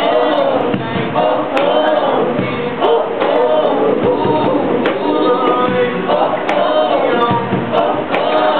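Live acoustic band music: several voices singing together in harmony on long held notes, over acoustic guitar.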